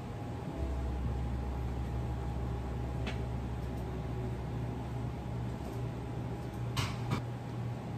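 Steady low mechanical hum with even room noise, and short clicks: one about three seconds in and two close together near the end.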